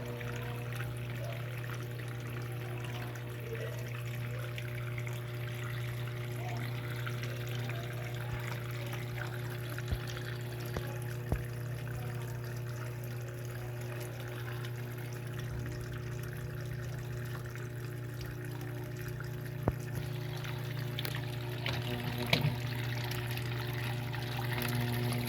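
Electrolux Turbo Economia LTD06 washing machine with water pouring and trickling inside it over a steady low hum, and a few sharp clicks or knocks.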